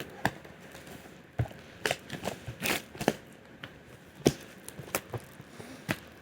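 Packaging of a keyboard box being opened by hand: irregular sharp clicks and taps with short rustles.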